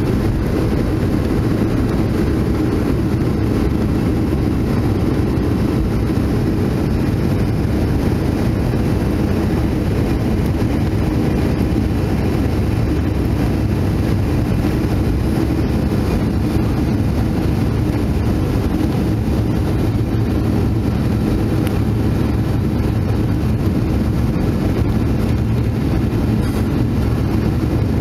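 Boeing 737-500 cabin noise over the wing: the CFM56 engines at takeoff and climb power make a loud, steady rush with a deep rumble, as the aircraft lifts off and climbs away.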